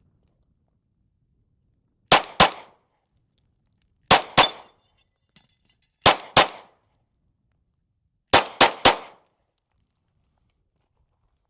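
Glock 45 Gen 5 9mm pistol firing nine shots: three quick pairs about two seconds apart, then three in rapid succession, each shot with a short echoing tail.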